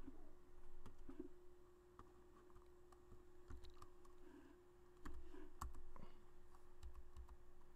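Computer keyboard keystrokes: a few scattered taps, a pause, then a quicker run of key presses about five seconds in, over a faint steady hum.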